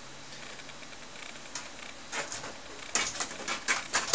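Top case of a TRS-80 Model III being lowered onto its chassis and fitted into place. It is quiet at first, then an irregular run of clicks and knocks in the last two seconds as the shell seats.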